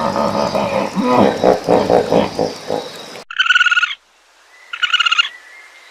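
Animal calls: a long stretch of low, pitched calls stops abruptly about three seconds in. Two short bursts of rapidly pulsed, higher-pitched calls follow, about a second apart.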